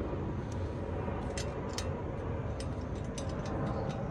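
About half a dozen short, sharp clicks and taps from hand tools being handled at the wheel, over a steady low rumble.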